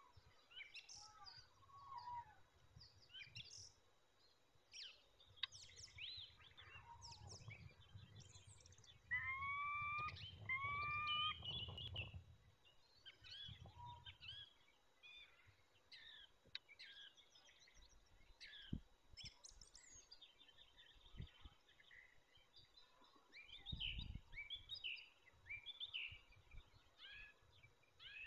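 Small songbirds chirping and singing in pine forest, with two louder calls that rise and then fall, about nine and eleven seconds in.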